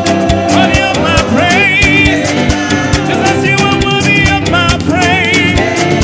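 Upbeat worship-band music: a drum kit plays a steady, driving groove under the band, with a wavering melody line over it.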